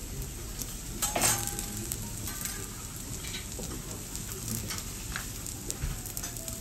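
Teppanyaki griddle sizzling steadily, with metal utensils clinking now and then; the loudest is a ringing clink about a second in.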